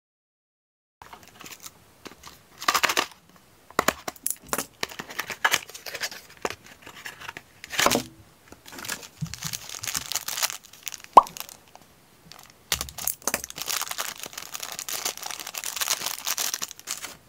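Toy blind-box packaging being opened by hand: a cardboard box torn open and a thin clear plastic bag crinkled and pulled apart, with sharp rips about three and eight seconds in and steady crinkling near the end.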